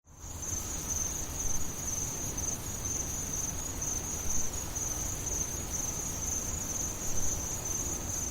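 A continuous high-pitched, finely pulsing trill like chirring insects, over a low rumble.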